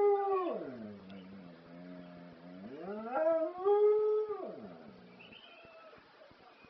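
Dog howling. A long howl slides down near the start into a low held moan, rises again about three seconds in to a second high howl, then falls in pitch and stops about five seconds in.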